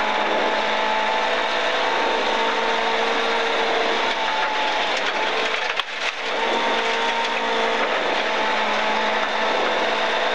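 Rally car engine running hard at steady high revs, heard from inside the cabin over loud tyre and gravel noise, with a brief dip in the engine note about six seconds in.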